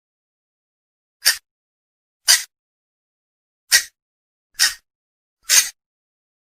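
Recorded calls of the blue mandar, a swamphen, played as a hunting lure: five short, rasping calls spaced about a second apart.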